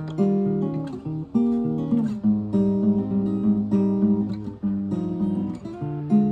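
Solo acoustic guitar playing a slow chord progression, chords struck roughly once or twice a second, each ringing on into the next.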